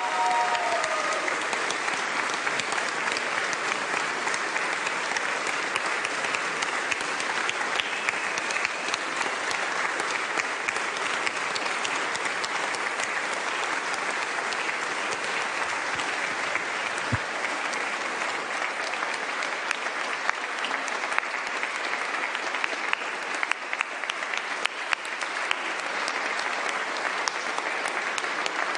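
A large crowd applauding, steady and unbroken, with no let-up.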